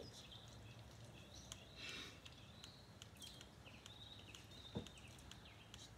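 Near silence: room tone with faint, short high chirps recurring throughout, a brief hiss about two seconds in, and a single sharp knock near the end.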